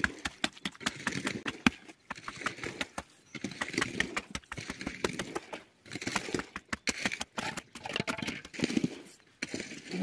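Fresh concrete in a rebar-caged footing pit being tamped with a wooden pole: quick, irregular wet slaps and knocks as the pole is driven into the mix to compact it.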